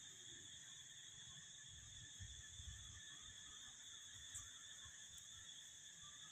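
Near silence: a faint, steady high-pitched insect drone.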